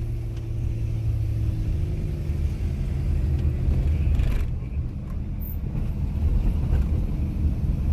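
A car on the move: steady low road and engine rumble.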